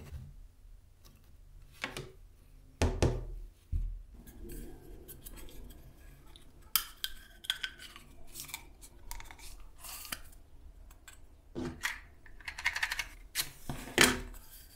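Hands handling a flexible corrugated plastic conduit, with small clicks and scrapes and a couple of dull knocks about three seconds in. Near the end a match is scraped along a matchbox and flares alight, the loudest sound.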